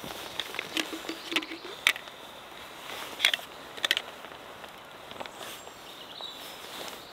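A hand coffee grinder being opened and handled after grinding: a few sharp clicks and taps of its parts, with a quick double click about four seconds in.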